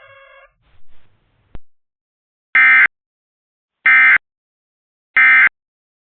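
Emergency Alert System End of Message signal: three short, loud bursts of SAME digital data tones, about 1.3 seconds apart, marking the end of the alert. A faint click comes just before them.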